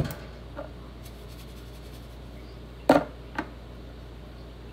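Kitchen handling sounds as a spice container is picked up and shaken over chicken in a roasting pan: a click at the start, then a loud sharp knock about three seconds in and a smaller one just after. A steady low hum runs underneath.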